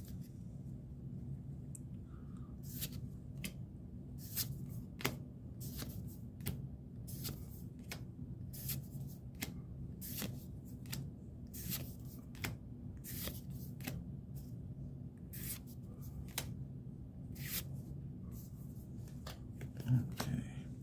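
Pokémon trading cards being flipped one after another in the hand, each card giving a short sharp snap, irregularly about one or two a second, over a faint steady low hum.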